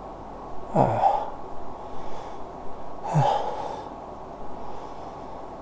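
A man's sneeze build-up: two sharp, catching breaths with a falling voice, about two seconds apart, as the nose tickle nears a sneeze that doesn't yet come.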